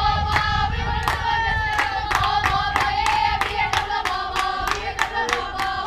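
A softball team's cheer: high voices chanting in unison over fast, steady rhythmic clapping, about four to five claps a second.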